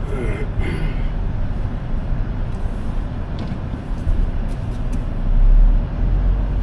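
Car driving, heard from inside the cabin: a steady low engine and road rumble that swells briefly near the end.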